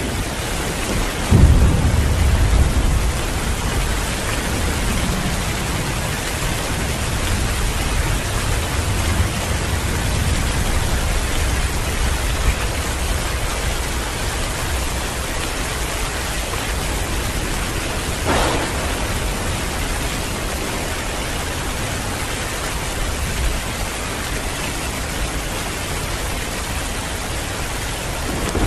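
Heavy rain falling steadily, with a rumble of thunder about a second and a half in that fades away over several seconds. A brief sharp crack comes a little past the middle.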